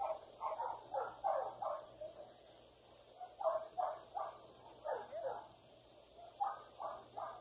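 A dog barking in short runs of two to five barks, with pauses between the runs.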